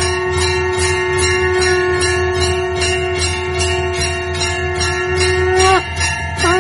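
Temple bells ringing rapidly and continuously during a puja, over one long held note that bends down in pitch twice near the end.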